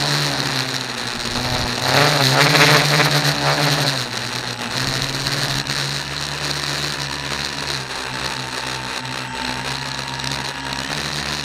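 Tricopter's electric motors and propellers running, heard from the camera mounted on the craft: a steady buzzing hum whose pitch rises and falls with the throttle. It is loudest and changes most about two to four seconds in, then settles to a steadier hum.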